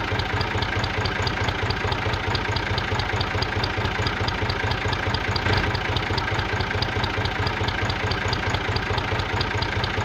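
A motor running steadily with an even, rapid chugging and a regular tick about five times a second.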